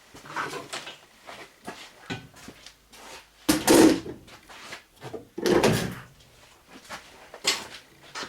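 Irregular scrapes and clunks of the fridge and its lifting gear being shifted by hand, the two loudest scrapes coming about three and a half and five and a half seconds in.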